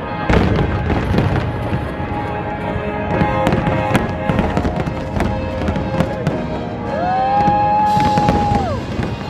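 Fireworks display: a steady run of crackling and popping bangs, with music playing underneath.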